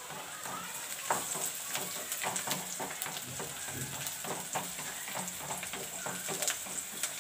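Chopped onions and green chillies frying in hot oil in a kadai, a steady sizzle with frequent small crackles, stirred with a wooden spatula.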